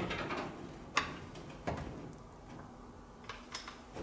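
A few sharp metallic clicks and knocks, one about a second in and another just under two seconds in, then faint ticks, from hand work on metal parts under the car.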